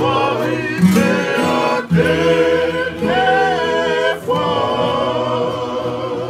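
Several men singing together in harmony to strummed acoustic guitars, a Tongan kava-club string-band song. They sing in long held phrases with short breaths about two and four seconds in.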